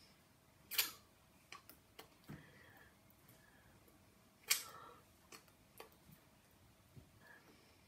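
A few small clicks and taps from a person signing in a quiet room, two sharper than the rest, about a second in and about four and a half seconds in, between fainter ticks.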